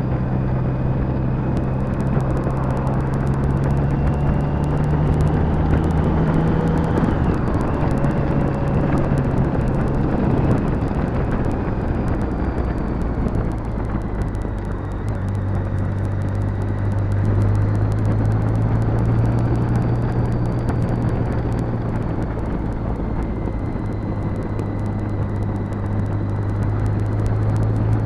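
BMW K75's three-cylinder engine running on the move under a steady rush of wind and road noise. Its note steps down about seven seconds in and again near ten seconds, then holds lower and steady.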